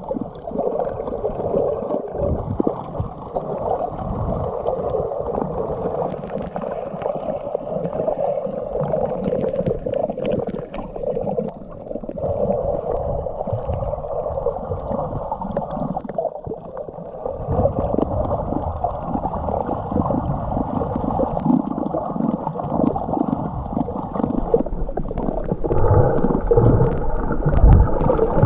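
Muffled underwater water noise, a steady rushing and gurgling heard through an action camera's waterproof housing while snorkeling. It grows louder near the end.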